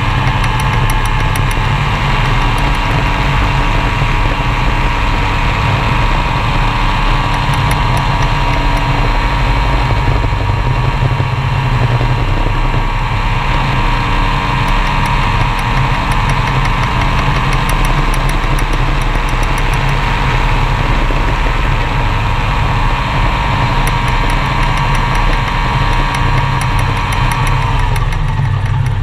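Gyroplane's engine and pusher propeller running steadily in flight, heard from the open cockpit. The engine note drops slightly near the end.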